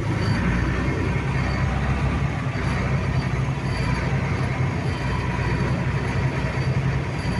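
Steady drone of farm machinery at work: a Massey Ferguson 7274 combine harvester unloading wheat into a tractor-drawn trailer, with the engines' low hum under the rush of the running machinery and grain.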